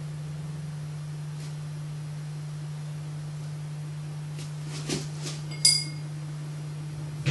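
A steady low hum, with a few light taps and then one short, ringing clink a little past halfway: a paintbrush knocking against a water pot.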